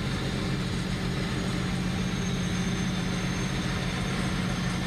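A steady low machine hum, even in level throughout.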